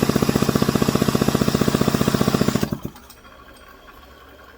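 McCulloch S550 two-stroke chainsaw engine being turned over steadily to check for spark after an ignition module swap, beating about twelve times a second, stopping suddenly a little over two and a half seconds in.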